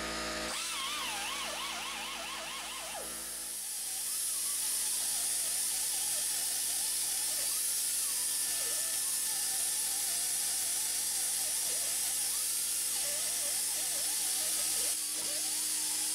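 Air-powered rotary tool with a hub-cleaning abrasive scouring rust off a car's rear wheel hub face around the studs. Its high whine wavers up and down in pitch as it is pressed on and eased off. A steady hiss grows louder a few seconds in.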